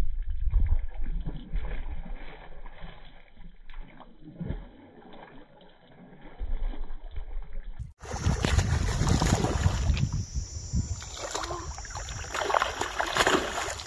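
A hooked fish splashing and thrashing at the water surface in shallow water, loudest near the start and again about six to eight seconds in. About eight seconds in the sound cuts abruptly to a louder, brighter sound from a different recording.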